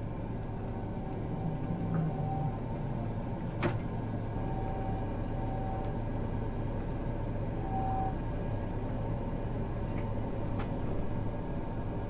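John Deere T670i combine's engine running, heard inside the cab as a steady low drone. A sharp click comes about four seconds in, and a few brief whining tones sound over the drone.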